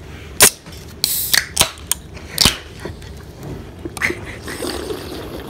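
Aluminium sparkling-water can being handled and drunk from close to the microphone: a few sharp clicks and knocks, with a short fizzy hiss about a second in.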